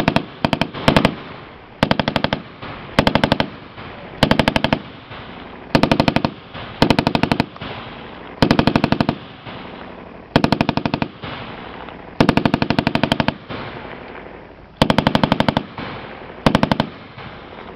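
Machine-gun fire in about a dozen short bursts of rapid shots, each under a second long and one to two seconds apart, with the echo ringing on between bursts.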